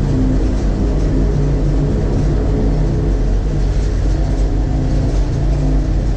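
Vehicle running at a steady pace: a constant low engine drone with road noise.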